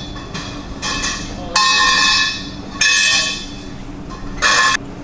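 Four short bursts from a shop power tool, each a whine over a hiss, with the longest near the middle.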